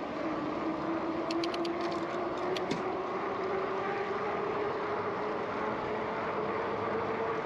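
Electric bike's motor whining steadily as the bike rides along, its pitch slowly rising as it gains speed, over wind and tyre noise. A quick run of light clicks comes about a second and a half in.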